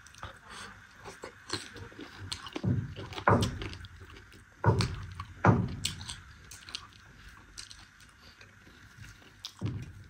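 Close-up eating sounds: a person chewing a mouthful of rice and meat eaten by hand, with wet mouth clicks and smacks. The louder sounds come a little under three and five seconds in.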